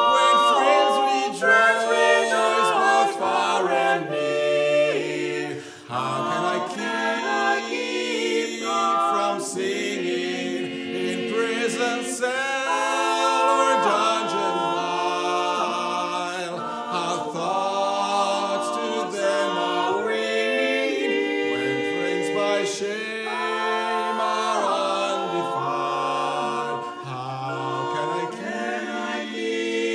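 Barbershop quartet of three women and one man singing a cappella in close four-part harmony, with no instruments.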